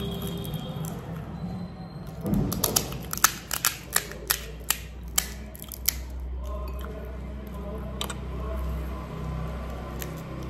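Crisp crackling clicks, about a dozen in three seconds, from a hollow panipuri shell being cracked open and handled, over a low steady hum.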